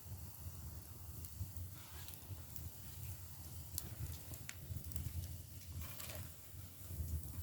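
Split bamboo firewood burning in an agungi firebox: scattered sharp crackles and pops over a low steady rumble.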